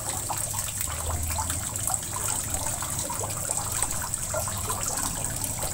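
Wet blended spice paste sizzling and bubbling in hot oil in a nonstick wok as a wooden spatula stirs it, with a steady run of small pops.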